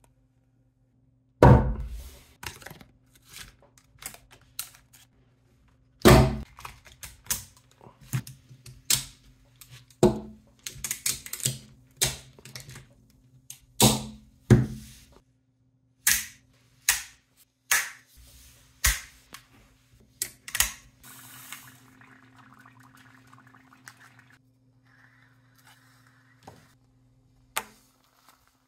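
Nickel-plated neodymium rod magnets snapping and clacking together, a string of sharp metallic clicks at irregular intervals, over a faint steady low hum.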